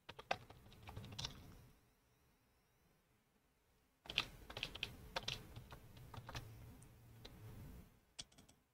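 Computer keyboard keys pressed in two faint runs of clicks, the first in the opening second and a half, the second from about four seconds in to about eight.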